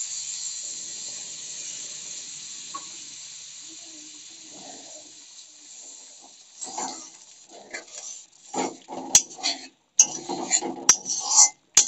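Ground masala paste sizzling in hot oil in a metal kadhai just after water is poured in, the hiss dying away over the first several seconds. Then a metal spatula scrapes and knocks against the kadhai in short, irregular strokes as the masala is stirred and fried.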